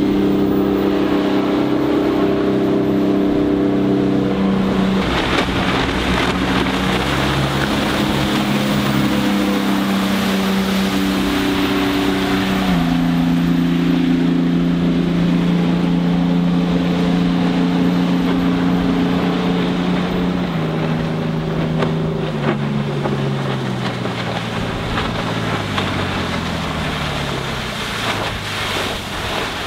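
Aluminium jet boat with a Yanmar 240 hp turbo diesel driving a jet unit, running at speed with a steady engine note over rushing water and wind on the microphone. Over the last several seconds the engine note falls step by step as the boat slows off the plane.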